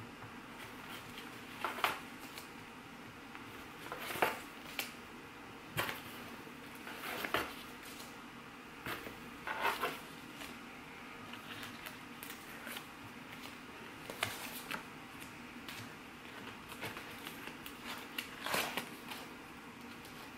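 Paper sticker sheets being pulled from cardboard file boxes and handled: short, scattered rustles and brushes of paper every second or few seconds, the loudest about four, ten and eighteen seconds in.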